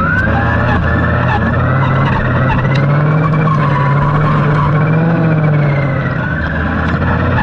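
STIHL FS 240R brush cutter's two-stroke engine running at high revs, its pitch rising a little in the middle and easing slightly near the end.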